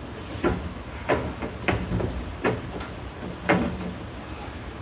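About five sharp knocks and clunks from parts being worked inside a pickup truck door as its window assembly is taken out, the loudest near the end, over a steady low hum.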